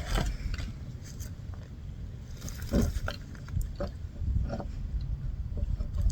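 Scattered clicks, knocks and light scrapes of mini bike parts and tools being handled, over a low rumble, with the clearest knocks about three and four and a half seconds in.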